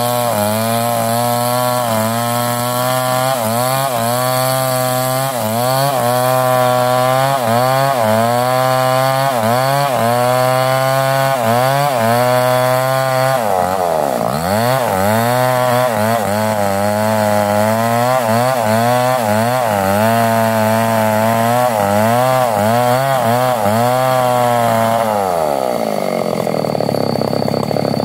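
Chainsaw engine running while ripping planks from a mango log, its pitch rising and falling about once a second as the load changes. The pitch dips briefly about halfway and falls near the end as the engine slows.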